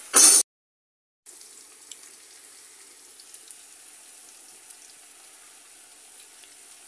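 Sliced onions sizzling in a frying pan: a steady, fairly quiet hiss, with a few faint ticks as sliced mushrooms are scraped off a wooden board into the pan. A brief loud noise right at the start cuts off into a moment of silence before the sizzling comes in.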